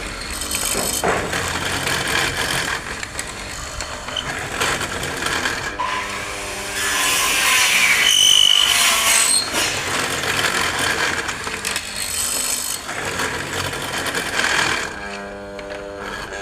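A tool cutting a mortise into a wooden door post: continuous scraping and grinding of wood, loudest a few seconds past the middle.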